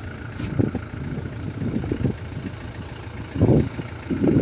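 Engine of a farm rice-hauling vehicle idling steadily, with a few louder low bumps, the loudest about three and a half seconds in.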